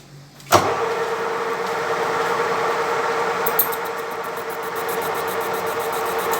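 Lathe switching on abruptly about half a second in and running steadily with a constant hum. From about three and a half seconds a fast, even, high ticking joins in.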